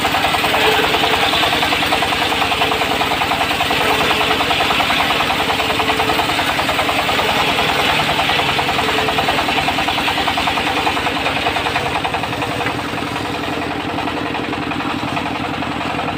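Diesel engine of a portable circular sawmill running steadily with a fast, even knocking beat, easing off somewhat in the last few seconds.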